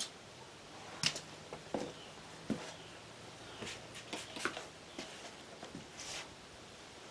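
Paper towel damp with multi-surface cleaner wiping and scrubbing a CRT monitor's plastic case: irregular rubbing swipes with light knocks and taps in between.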